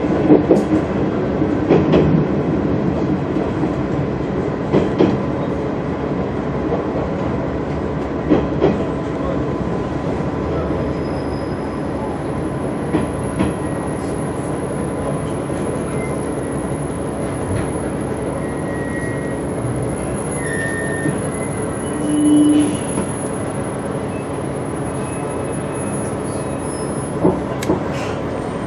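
Train running into a station and slowing to a stop: clicks of the wheels over rail joints in the first several seconds, thinning out as it slows, over a steady running hum, with a short louder tone later on.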